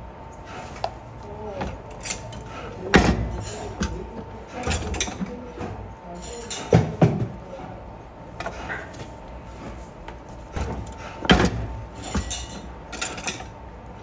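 Metal knocks and clatter from a hand-operated moulding press and its steel mould while socket bodies are pressed and lifted out: a few sharp knocks, with a close pair near the middle and lighter clicks between them.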